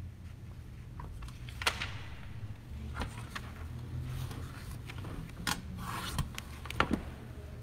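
Room noise: a low steady hum with scattered light clicks and knocks, the sharpest about two seconds in, past five seconds, and near the end.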